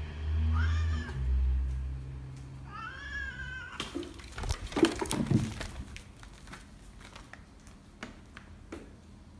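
Domestic cat threat-growling low at a young water monitor lizard, breaking into two short yowls that rise and fall, about half a second and three seconds in. A burst of knocks and rustling follows about four to five seconds in, the loudest part.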